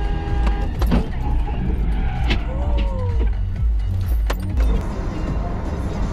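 Low, steady road and engine rumble inside a moving car's cabin, with a few sharp knocks about one, two and four seconds in.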